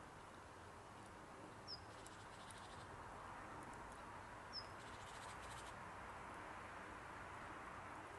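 Faint steady outdoor hiss with two short, high bird chirps, one a little under two seconds in and another around halfway.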